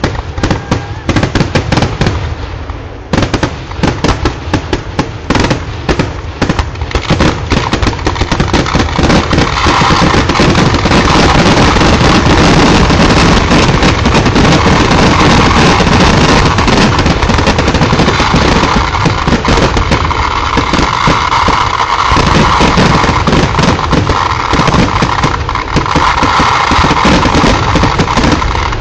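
Temple fireworks going off: a rapid string of loud firecracker bangs that thickens about nine seconds in into a continuous barrage of explosions.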